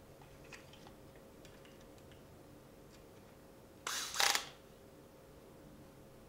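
A few faint clicks, then a brief two-part scrape about four seconds in as a screwdriver turns a screw into a laptop hard drive's metal caddy.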